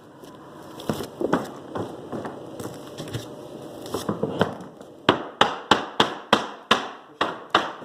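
Scattered knocks and handling clicks on the wood, then a hammer striking in a quick run of about a dozen sharp blows, roughly four a second, as the hardwood flooring is nailed down.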